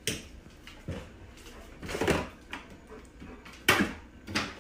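A dog pulling open a refrigerator door by a towel tied to its handle: a handful of short knocks and rustles, the loudest about two and about four seconds in.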